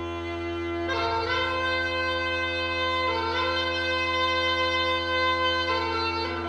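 Background music of sustained instrumental chords, with new notes coming in about every two to three seconds.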